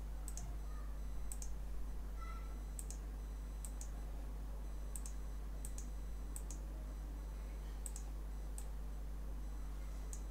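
Computer mouse button clicking, a sharp click about every second, often in quick pairs, over a steady low electrical hum.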